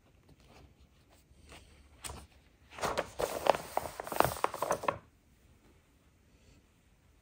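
Paper rustling as a page of an instruction booklet is turned and pressed flat by hand: a crackly run of about two seconds starting about three seconds in.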